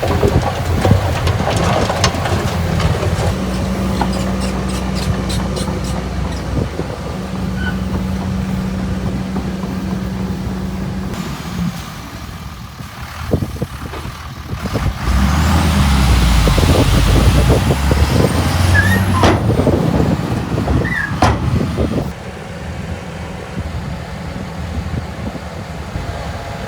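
Heavy diesel engines of dump trucks and bulldozers working, running steadily, with a louder, heavier stretch about halfway through that drops off abruptly about 22 seconds in.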